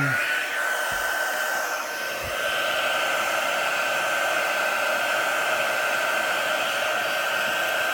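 Electric heat gun blowing hot air to soften screen adhesive: its fan whine climbs as it spins up at the very start, then runs as a steady rushing hiss with a constant high whine.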